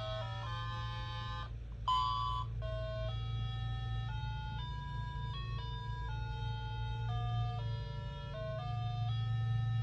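Talking calculator's built-in electronic melody playing: a simple beeping tune, one note at a time, stepping in pitch every few tenths of a second, over a steady low hum. The tune breaks off briefly just under two seconds in and comes back with a louder note.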